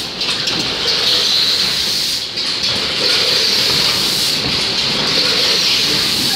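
Automatic 10-head weighing and bag-packing machine running: steady mechanical running noise with a strong high hiss, briefly dipping about two seconds in.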